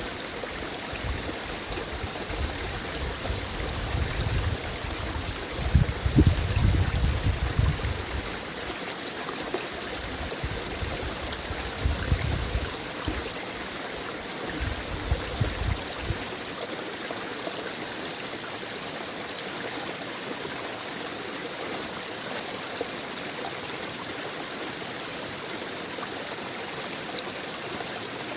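A mountain stream running and splashing over small falls, a steady rush of water. Low rumbles come in through the first half, loudest about six seconds in.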